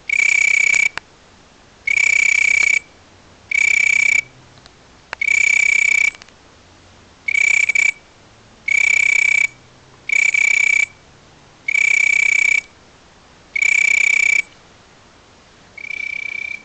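An insect calling at night: a loud, high whistling trill in bursts of under a second, repeated steadily about every one and a half to two seconds, ten times. The last burst near the end is weaker.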